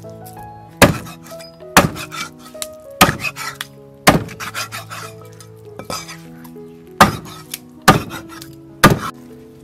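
Heavy steel cleaver chopping through fish into steaks on a thick wooden chopping block: seven sharp chops, roughly one a second, with a pause of about three seconds midway.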